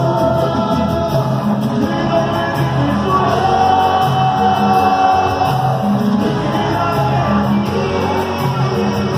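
Live band music played loud over the PA, with a male singer singing into a microphone over a repeating bass line.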